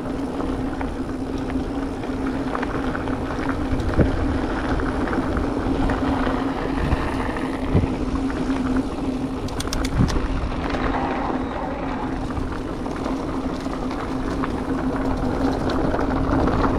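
Electric mountain bike ridden on a trail: a steady hum with tyre rolling noise and wind on the microphone. There are short knocks over bumps about 4, 8 and 10 seconds in.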